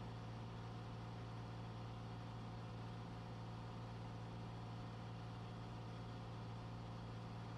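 Cessna 182's piston engine and propeller droning steadily at cruise power, heard inside the cabin.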